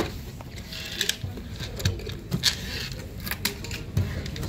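A paper stamp booklet being handled and its pages turned, with about half a dozen short clicks and taps spread through.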